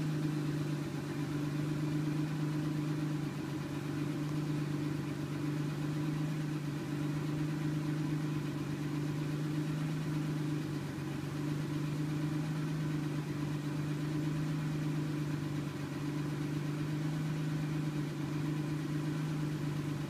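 A BMW E23 735i's straight-six engine idling steadily, heard from inside the cabin as an even, low hum.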